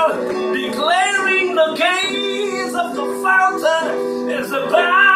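A man singing with no clear words into a microphone, his voice rising and falling in long held phrases over sustained chords on an electronic keyboard.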